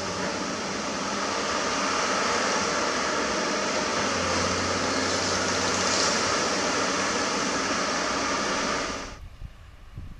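Komatsu PC200 hydraulic excavator running close by, a steady engine hum under a strong hiss. It cuts off abruptly about nine seconds in, leaving only faint outdoor sound.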